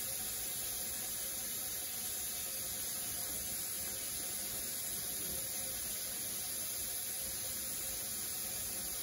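Steady, even hiss with a faint hum beneath it. No separate handling sounds stand out.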